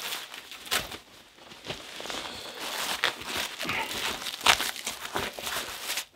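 Nylon fabric and straps of a First Spear Siege plate carrier rustling and scraping irregularly as it is pulled on and strapped up, with one sharper rasp about four and a half seconds in.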